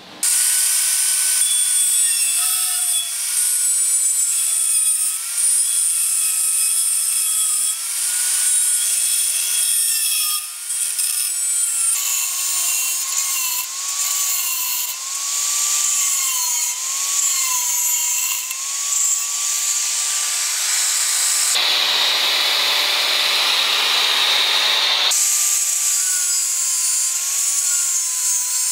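Angle grinder with a thin cut-off disc cutting through a steel saw blade: a loud hiss of the disc in the metal over the motor's whine, which wavers and dips as the cut loads it. For a few seconds in the last third the whine gives way to a coarser, lower grinding.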